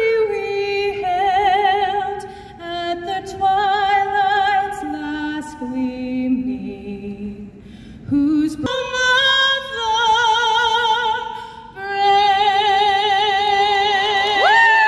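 A woman singing solo with wide vibrato, long held notes, climbing to a higher register partway through. Near the end the crowd begins to whoop and cheer.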